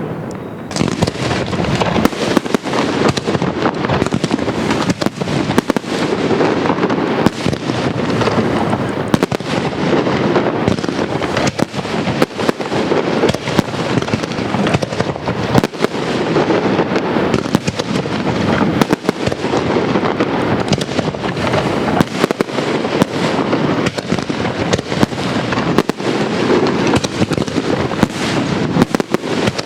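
Castillo aerial fireworks barrage: a continuous, dense run of shell bursts and crackling reports, many a second, with no let-up.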